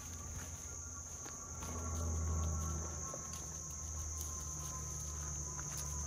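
A steady, high-pitched chorus of insects droning without a break, with faint footsteps on a dirt path and a low rumble underneath that swells briefly about two seconds in.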